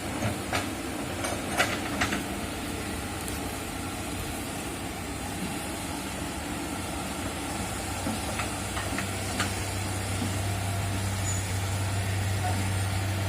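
Excavator's diesel engine running steadily, with a few sharp metallic clanks in the first two seconds and a couple more later; the engine grows a little louder near the end.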